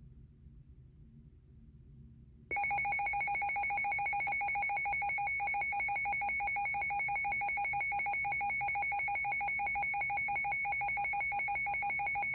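Weather alert radio's built-in alarm going off: a loud electronic warble of rapid beeps that starts suddenly about two and a half seconds in, after a faint hum, and keeps going without a break. It signals that a warning alert, here a severe thunderstorm warning, has been received.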